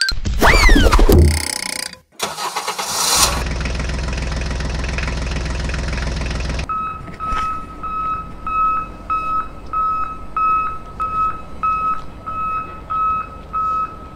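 Dubbed toy-tractor sound effects: a loud sweep with a sliding pitch, then an engine starting and running steadily for a few seconds before cutting off suddenly. After that a high electronic beep repeats about twice a second.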